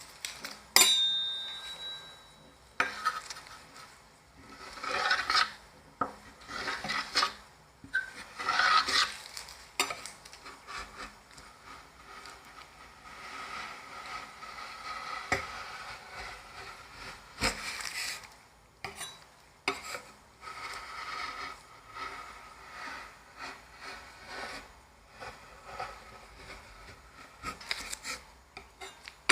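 Metal spatulas scraping, chopping and tapping on the cold steel pan of an ice cream roll machine, with a loud ringing clink about a second in.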